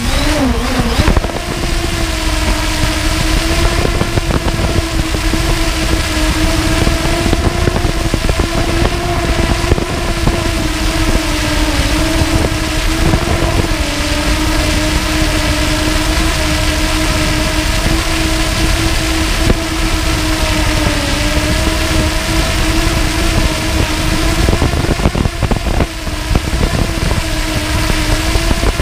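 Multirotor drone's motors and propellers running steadily, a high buzzing hum whose pitch wavers slightly as it holds position, with a brief dip in pitch about a second in.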